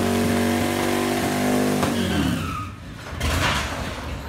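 Motorcycle engine held at high, steady revs during a burnout, the rear tire spinning on a concrete garage floor; about two seconds in the revs fall away, and a short rush of noise follows.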